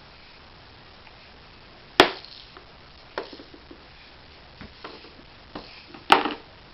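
A baby banging a toy against a hard surface: two loud, sharp knocks, about two seconds in and about six seconds in, with a few lighter knocks between.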